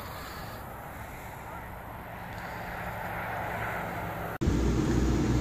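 Open-air ambience with wind noise on a phone microphone and a faint steady low hum. About four seconds in it cuts off abruptly and a much louder low rumble takes over.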